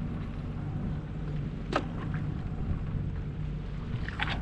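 Sea-Doo Fish Pro personal watercraft engine running steadily at trolling speed, with water washing along the hull. A sharp knock or splash comes a little under two seconds in, and a few more splashes and knocks come near the end.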